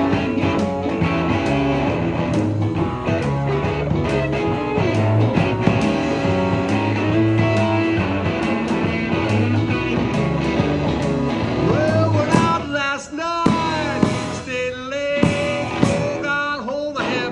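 Live blues-rock band playing an instrumental stretch on electric guitars, drums and keyboard. About twelve seconds in, the low end drops out in short breaks, leaving gliding lead notes between the band hits.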